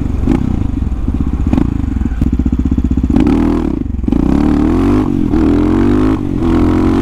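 Supermoto motorcycle engine running: a steady low pulsing at first, then revving up and down from about three seconds in, with short drops near four and six seconds.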